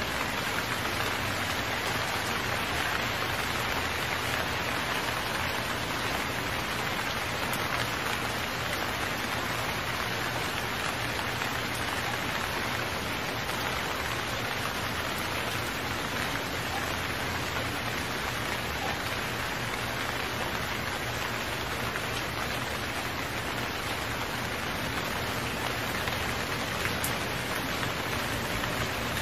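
Heavy rain falling steadily, an even hiss of dense drops that neither builds nor eases.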